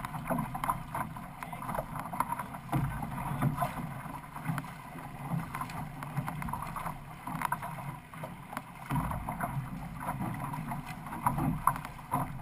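Water splashing and rushing against the hull of a six-person outrigger canoe under way, with the uneven wash of the crew's paddle strokes.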